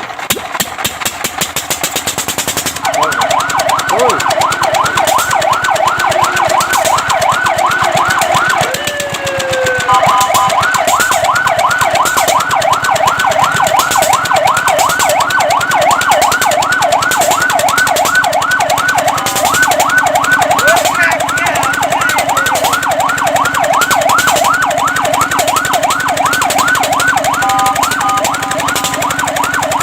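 Fire truck siren sounding a rapid yelp, its pitch sweeping up and down about four times a second. It starts about three seconds in, breaks briefly about nine seconds in, then comes back louder.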